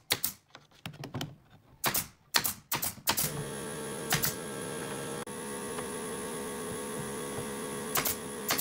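Pneumatic nail gun firing sharp shots into pine pallet boards, several in the first three seconds and a few more later. About three seconds in, a steady buzzing hum starts and runs on under the shots: the air compressor kicking on to refill.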